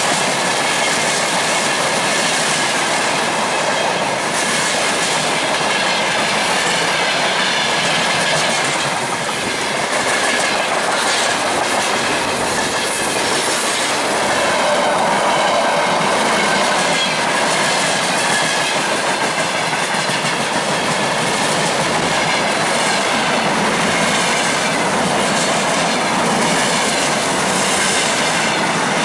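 Freight wagons (tank cars and open wagons) rolling past close at speed, a steady loud rumble with the clickety-clack of wheels over rail joints.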